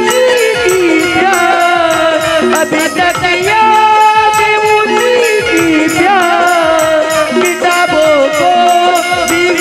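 Live Chhattisgarhi folk music from a nacha troupe. A held, bending melody runs over a steady beat of jingling percussion, about four strokes a second.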